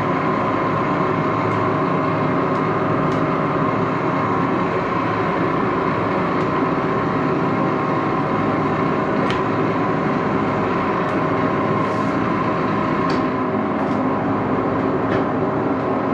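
Antique Axelson geared-head engine lathe running loud and steady at 850 rpm, its headstock sounding as a dense hum of several steady tones.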